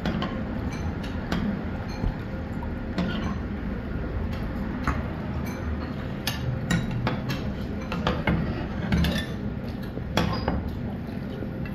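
A metal ladle clinking and knocking against a ceramic plate and a steel pot, a dozen or so irregular sharp clinks over a steady low background rumble.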